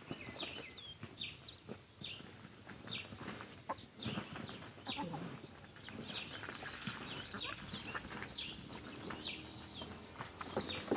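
Chickens clucking and chirping, many short high calls one after another.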